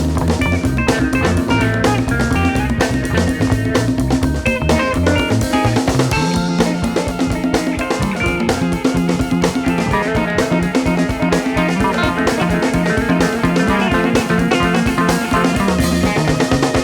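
Studio rock recording: electric guitar lines over bass guitar and a steady drum-kit beat, with no vocals heard.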